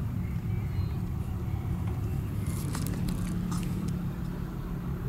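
Steady low rumble inside a parked car's cabin, with a few light clicks a little past halfway.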